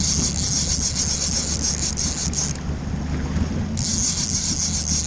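A boat's 350 engine purring steadily at low speed. Over it is a high rushing hiss that drops out for about a second just past the middle.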